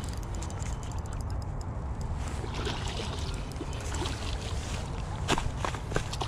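Spinning reel being cranked to bring in a hooked fish, then the fish splashing and thrashing at the surface by the bank, with several sharp splashes near the end. A steady low wind rumble on the microphone runs underneath.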